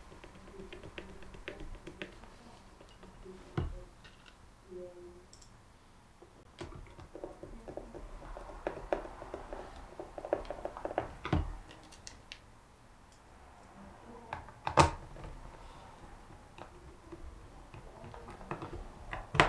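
Screwdriver driving the screws back into the plastic clamshell housing of a Kranzle M2000 pressure-washer trigger gun: scattered light clicks and ticks, with a run of quick clicks about halfway through. A few sharper knocks come as the gun and tools are handled.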